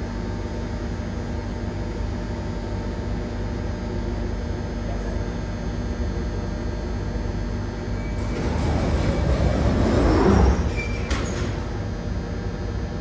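London Underground 1996 Stock Jubilee Line train standing at the platform with a steady low hum, then its doors and the platform screen doors closing. A rush of noise builds for about two seconds, cuts off sharply, and is followed by a brief clunk.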